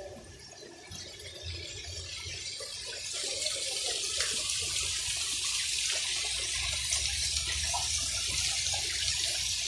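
Rushing, splashing water of a waterfall, a steady hiss that grows louder over the first three seconds and then holds.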